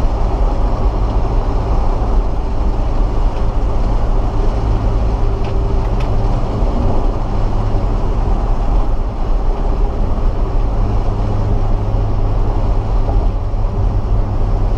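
Steady low road and engine rumble inside the cab of a moving pickup truck.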